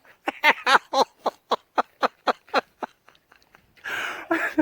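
A person laughing in a run of short bursts, about four a second, trailing off; near the end more laughter and voices start up.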